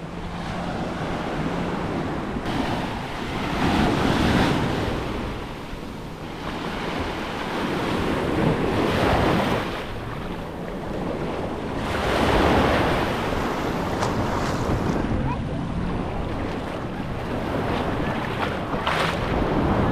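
Small sea waves washing onto the shore in surges every few seconds, over wind rumbling on the microphone.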